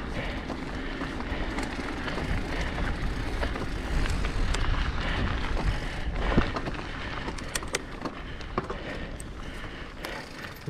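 Mountain bike riding along a packed dirt trail: steady tyre noise on the dirt with a low rumble of wind on the microphone, and a few sharp clicks and rattles from the bike in the second half.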